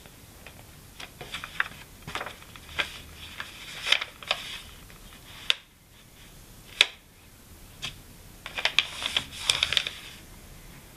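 Hands opening a Kokuyo Campus paper notebook and pressing its pages flat: short, sharp paper crackles and taps in two flurries, with a quieter lull in the middle.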